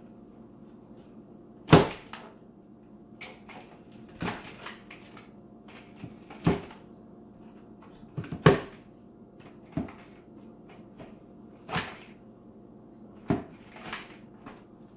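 Garden lopper blades biting through hard chaga mushroom chunks in an aluminium foil tray. About seven sharp cracks come a second or two apart, the loudest near the start and about halfway through.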